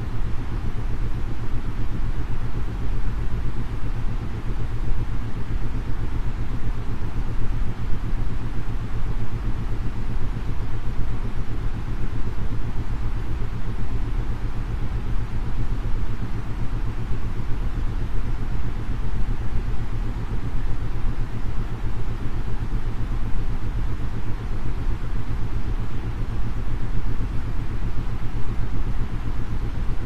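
Steady synthetic noise for sleep, heaviest in the low end with a fainter hiss above, carrying isochronic tones that pulse on and off several times a second for brainwave entrainment.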